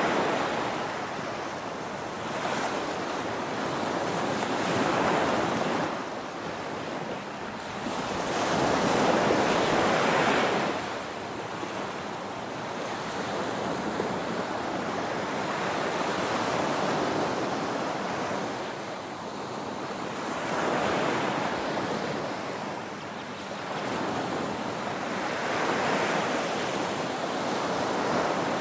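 Small ocean waves breaking and washing up the shore, the surf swelling and easing every few seconds, with the loudest wash about a third of the way in.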